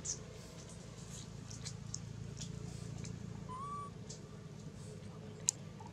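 Low steady background hum with scattered faint clicks and ticks, and one short rising squeak from an animal about three and a half seconds in; a sharper click comes near the end.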